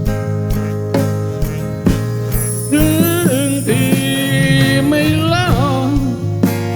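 Live Thai folk-rock band playing an instrumental passage: drums keeping a steady beat under bass and strummed guitar chords. About three seconds in, a lead melody comes in over the band, with bends and slides in pitch.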